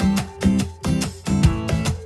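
Background music: a strummed acoustic guitar playing a steady rhythm of chords.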